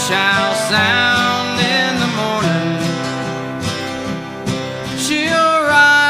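Dobro playing a lead with sliding, gliding notes over a strummed flat-top acoustic guitar: an instrumental break in a country-gospel song, with no singing.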